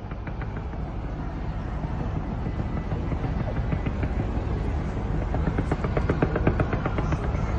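Fireworks going off: a steady low rumble of bursts with a dense, rapid crackling that thickens and gets louder about five seconds in.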